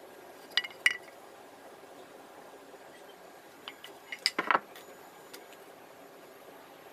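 Planed wooden boards knocking together as they are picked up and moved: two sharp knocks near the start, then a quick run of several clacks about four seconds in.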